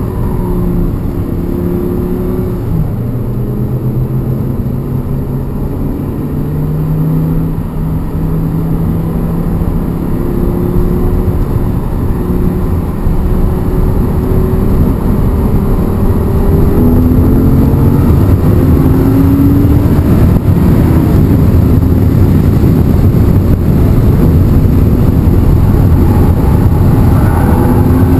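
Audi R8's 5.2-litre V10, fitted with an ECU/TCU tune and a BMC intake, driven hard and heard from inside the cabin: the engine note rises and falls through gear changes over steady road noise, and it grows louder from about halfway through.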